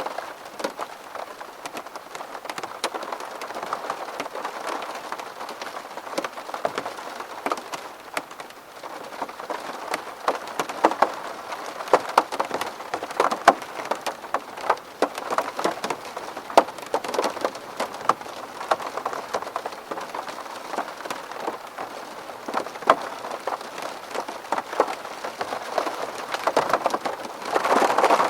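Rain falling on a window: a steady hiss of rain with many separate drops tapping sharply on the glass, some louder than others.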